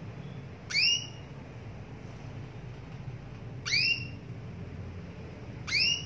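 Female canary giving its calling note three times, about every two and a half seconds: each a short whistled call that sweeps up in pitch and then holds briefly.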